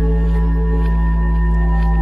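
Ambient film-score cue: a loud, deep, sustained drone with layered steady ringing tones above it, built from a processed recording of a London Underground train's electrical whine as it arrives at a station.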